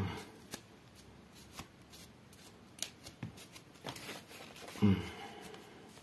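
A plastic comb dragged through a doll's rooted synthetic hair, which the owner takes for nylon, in repeated short strokes: a light scratchy rustling with small clicks. A soft knock comes right at the start and a louder one about five seconds in.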